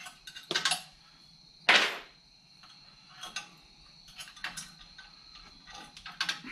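Retaining pins being pulled out of a Powerbuilt strut spring compressor's arms after the spring tension is released. There are sharp clicks and clinks, one louder clank a little under two seconds in, then fainter scattered clicks.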